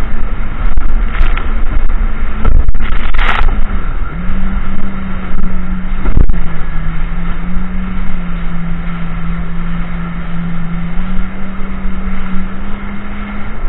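Jet ski engine running under way, a steady tone whose pitch drops about six seconds in and rises again about eleven seconds in as the throttle changes. Water splashes against the hull and camera a few times in the first few seconds.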